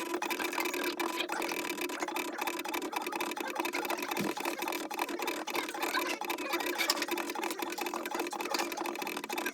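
Stepper motors of a small CNC drawing machine running as it moves the pen, a steady machine buzz with held whining tones and fast fine ticking.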